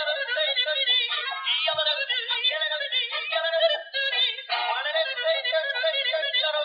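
Dancing cactus plush toy playing a song with a high singing voice through its small built-in speaker, thin and tinny with no bass. The song breaks off briefly about four seconds in, then carries on.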